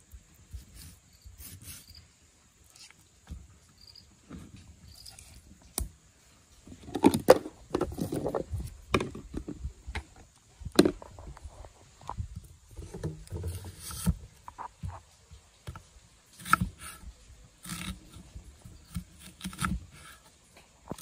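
Kitchen knife cutting on a wooden chopping board: scoring a whole scaled fish and slicing a red onion, with scattered knocks and scrapes of the blade. A louder, rougher stretch of sound comes about seven to nine seconds in.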